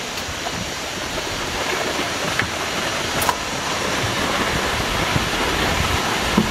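Steady rush of a waterfall's falling water, an even noise that grows slightly louder, with a few faint ticks.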